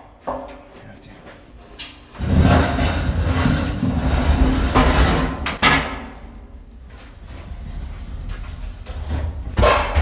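Heavy metal powder cans being handled against steel in the magazine. A loud rumbling scrape starts about two seconds in and lasts about three and a half seconds, with a few sharp knocks near its end. Softer rubbing follows, then another loud scrape near the end.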